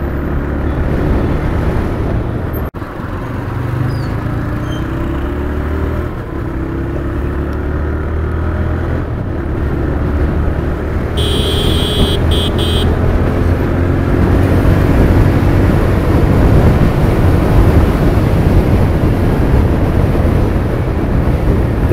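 Motorcycle engine running under way with road and wind noise, its pitch rising through the gears and the sound growing louder from about halfway as the bike speeds up. A brief high-pitched beeping sounds near the middle.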